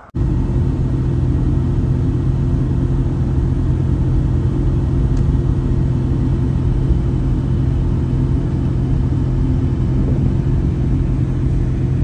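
Steady low drone of a bus's engine and road noise heard from inside the cabin while it travels along a highway, with a constant low hum.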